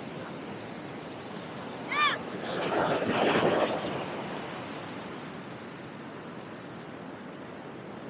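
Ocean surf washing up onto the sand, with a louder wave surge about three seconds in. A single short bird call sounds just before the surge.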